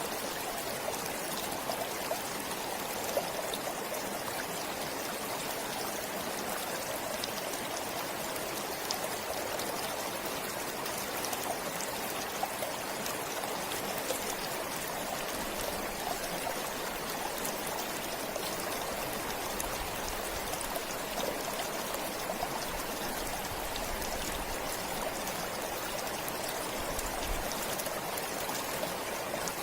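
Stream flowing steadily over stones, a continuous rushing and babbling with small splashes.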